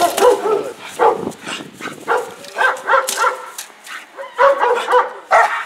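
German Shepherd-type dog barking hard in a rapid series, about two barks a second, while lunging on its leash at a decoy during protection bite work. This is the aggressive drive display trained into a protection dog.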